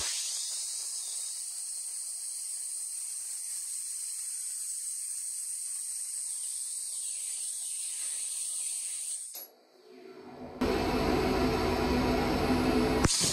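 Dry ice blasting machine's compressed-air jet hissing steadily while blasting a car's floor carpet. It drops out briefly about nine and a half seconds in, then comes back louder and fuller, with a low rumble under the hiss.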